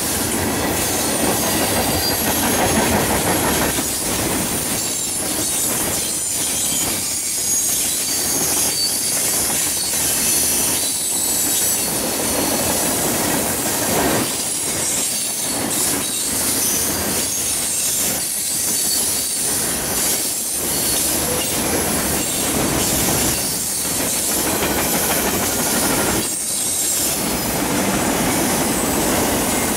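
Cars of a Norfolk Southern manifest freight train rolling past close by, a steady loud rumble and rattle of steel wheels on rail that dips briefly now and then. A faint high wheel squeal runs over it.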